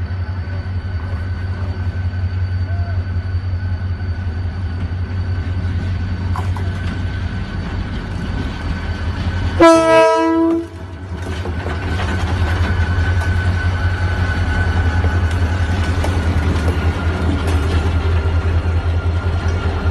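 GMU diesel-electric locomotive running with a steady low rumble as it draws near and passes close by. About halfway through comes one loud multi-tone horn blast lasting about a second, which cuts off sharply.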